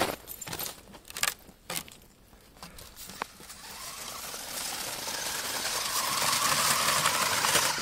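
An RC rock crawler's electric motor and gears whining under throttle, the whine building steadily louder over the second half. Before it, a few scattered clicks and knocks.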